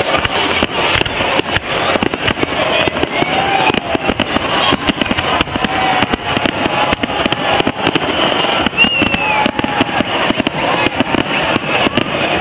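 Fireworks display: aerial shells bursting in a dense, irregular run of bangs and crackles, several a second, over a continuous rumble and fizz.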